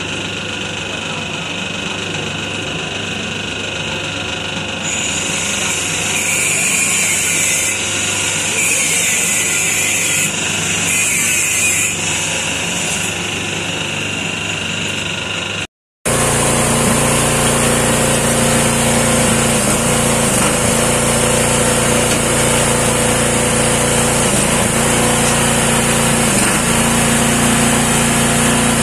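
Tapioca dough mixer running, its motor and paddle churning thick flour dough with a steady mechanical hum. A higher hiss comes and goes in the first half. After a brief break about halfway, the machine runs on louder and steadier.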